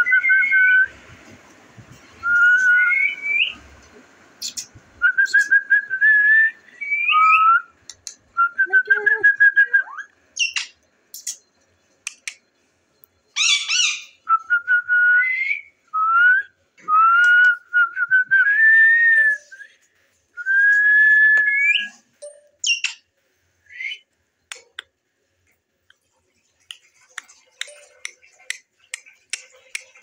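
Indian ringneck parrot whistling: a series of short whistled notes, many sliding upward at the end, with pauses between them. Short sharp clicks come in between, thickest near the end.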